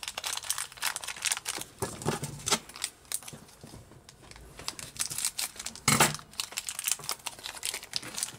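Thin clear plastic wrapper crinkling and crackling as it is handled and cut open with scissors, with the sharpest, loudest crackle about six seconds in.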